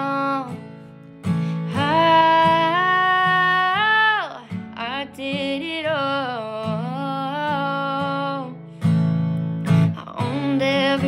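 A girl singing a slow melody with long held notes, one sliding down about four seconds in, over a strummed acoustic guitar.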